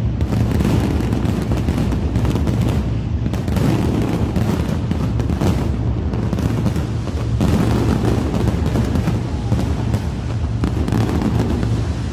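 Fireworks going off in rapid, continuous succession: a dense run of bangs and crackles over a deep steady rumble.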